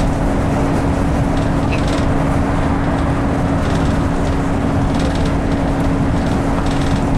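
Bus engine and tyre noise heard from inside the passenger cabin while driving along at steady speed: a continuous drone with one constant humming tone over a low rumble.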